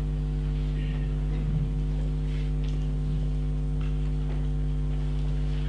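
Steady electrical mains hum from the sound system, with a few faint small rustles and clicks.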